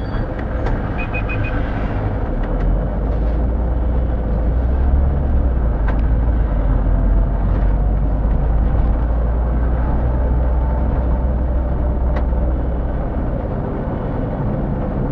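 City bus engine and drivetrain heard from inside the cabin as the bus pulls away from a stop, a steady low rumble that strengthens about two and a half seconds in and eases off near the end. About a second in, four quick high beeps sound.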